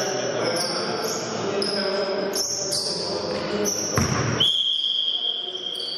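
Basketball being played in a gym: a ball bouncing, many short high squeaks, and voices echoing around the hall. About four and a half seconds in, a steady high tone starts and holds.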